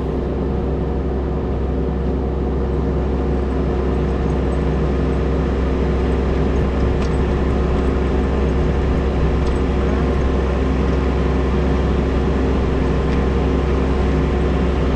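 Kubota U17 mini-excavator's three-cylinder diesel engine running steadily, with a few faint ticks over it.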